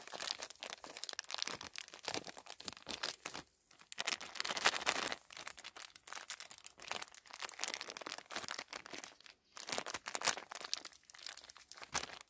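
Clear plastic bag crinkling and rustling in irregular bursts, with soft crunching, as a hand packs moist peat moss into it around a branch to build an air layer.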